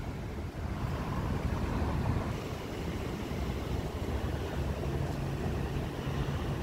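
Steady low rumble of street traffic with wind on the microphone.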